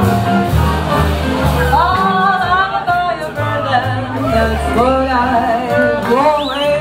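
Small jazz band playing live, with double bass, drums, archtop guitar and accordion. About two seconds in, a wordless vocal line joins, sliding up and down in pitch.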